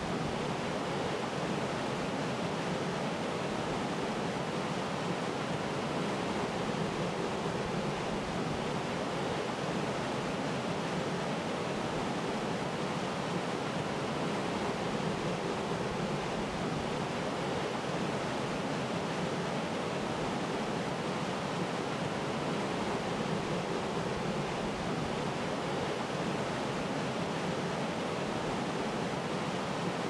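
Waterfall rushing steadily, an even, unbroken noise of falling water.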